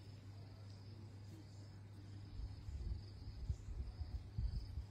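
Crickets chirping in a faint pulsing trill over a steady low hum, with a few low thumps in the second half.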